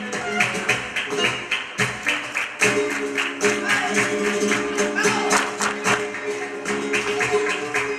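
Flamenco music: steady held notes over a dense run of sharp percussive strikes, several a second.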